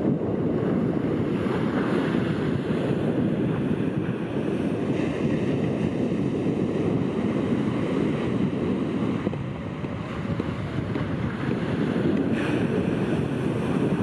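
Heavy shorebreak surf breaking and washing up a sand beach: a steady, continuous noise of waves, with wind noise on the microphone.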